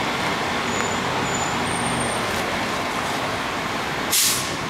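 Steady noise of road traffic and engines, with a short hiss about four seconds in.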